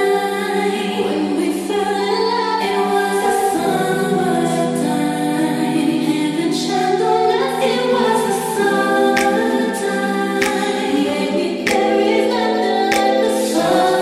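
Background music: held, layered chords with singing that shift every few seconds, over sparse clicking percussion.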